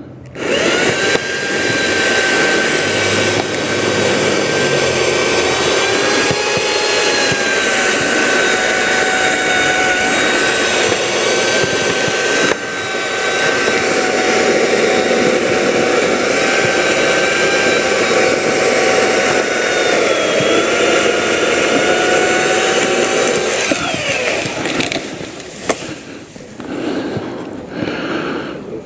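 Chainsaw running at full throttle, cutting maple limbs, its pitch dipping slightly now and then as the chain bites. It comes in suddenly at the start and drops away about 24 seconds in.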